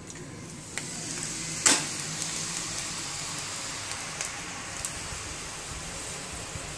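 Strands of gram-flour gathiya dough frying in hot oil: a steady sizzle, with a few sharp knocks, the loudest nearly two seconds in.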